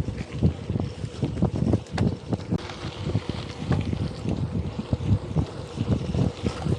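Wind buffeting the microphone of a camera on a gravel bike being ridden, over an irregular low rumble and knocking from the tyres and bike on rough ground.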